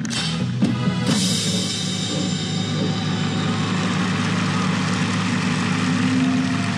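Drum and bugle corps ensemble performing, picked up close by a marimba-mounted GoPro: a few sharp percussion hits in the first second, then a held low chord with a steady wash of sound over it.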